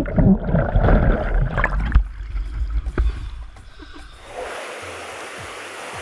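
Water sloshing and gurgling close to the microphone as a caver moves along a guide line through a flooded cave passage. About four seconds in, this gives way to a steady hiss.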